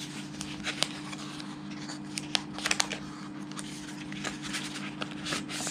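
Small white cardboard box being opened and handled by hand: scattered light clicks, scrapes and rustles of paperboard flaps and the inner tray, bunched together about two to three seconds in. A steady low hum runs underneath.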